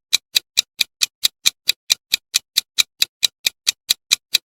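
Quiz countdown timer sound effect: steady clock-like ticking, about four and a half ticks a second.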